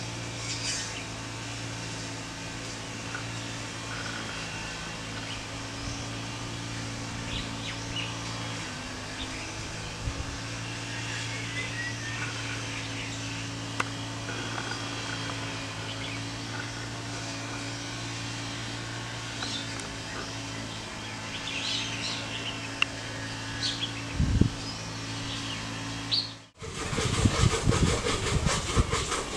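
Outdoor garden ambience: a steady low hum with scattered bird chirps. Near the end the sound cuts to a louder, rough, rasping noise.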